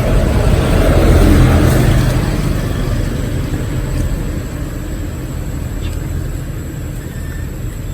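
A loud low rumble that swells about a second in and then slowly fades.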